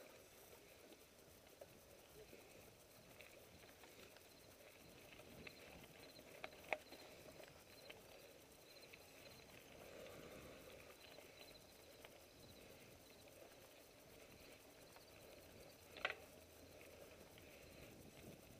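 Faint hoofbeats of a horse walking on a dirt trail, with a sharp click about a third of the way in and another near the end.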